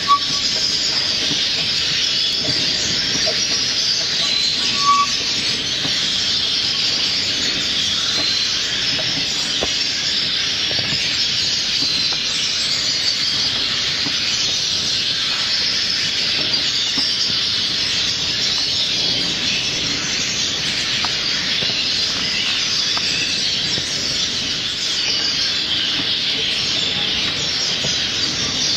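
Steady, dense chirping and twittering of many small birds together, with two short clear whistled notes, one at the start and one about five seconds in.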